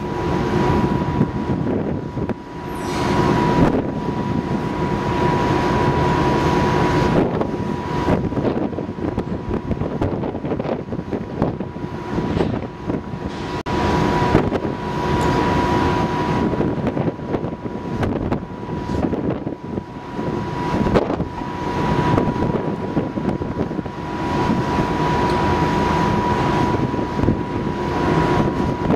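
The ferry's machinery running, a steady hum with a constant high whine over it, mixed with rushing wind on the microphone that swells and eases every few seconds.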